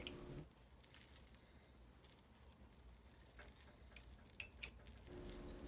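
Near silence with a few faint, soft clicks and squishes about three and a half to five seconds in, from hands pulling apart cooked smoked turkey meat.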